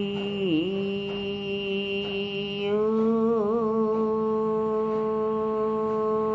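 A woman's voice chanting one long, steady Om: the open vowel dips briefly in pitch, then about three seconds in closes into a held hum.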